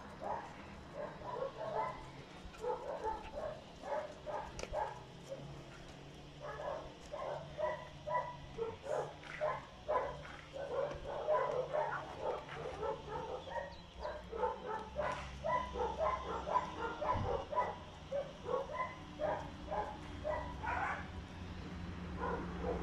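Several dogs barking and yipping in short, rapid calls that overlap and go on almost without a break.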